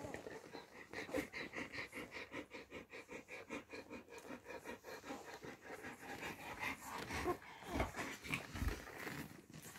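A Bernese mountain dog mother nursing her week-old puppies: a fast, even rhythm of breathing and suckling, about six pulses a second, with two low bumps about eight seconds in.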